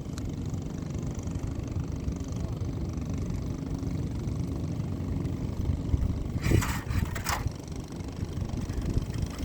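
Fishing boat's engine running steadily with a low rumble. Two short bursts of hiss come through about six and a half and seven seconds in.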